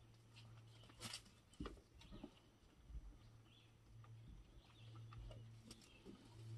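Near silence: faint outdoor ambience with a low steady hum, a few soft knocks and faint high chirps.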